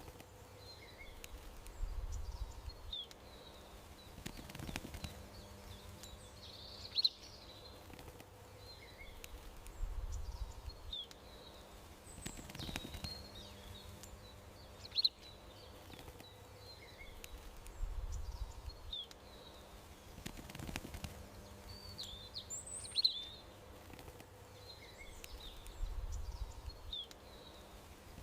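Garden ambience of small birds chirping and twittering in short, scattered calls. A sharp click comes about every eight seconds, and a low rumble falls between the clicks, also about every eight seconds, repeating like a loop over a faint steady hum.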